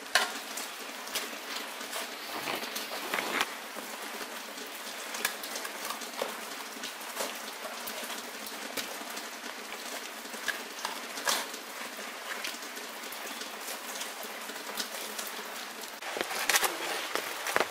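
A steady pattering hiss with many irregular sharp ticks and taps scattered through it, a few louder taps clustering near the end.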